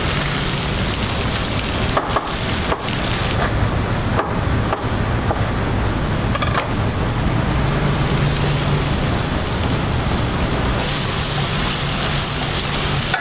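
Chef's knife chopping cherry tomatoes on a cutting board: a handful of sharp, irregular knocks in the first half, over a steady rushing kitchen noise. Near the end, a sauté pan of Swiss chard is tossed over a gas flame and a hiss rises.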